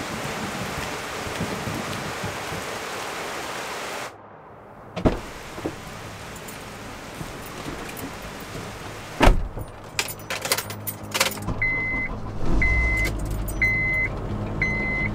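Rain falling for the first four seconds. Then a car door shuts with a loud thump, keys jangle, and a Honda's engine starts and runs low and steady while a dashboard warning chime beeps about once a second.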